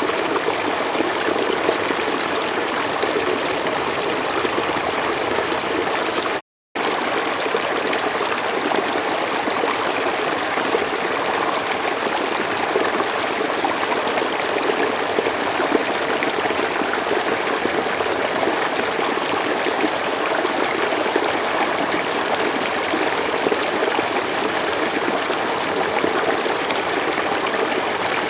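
Steady rushing of a flowing river, with a split-second drop to silence about six and a half seconds in.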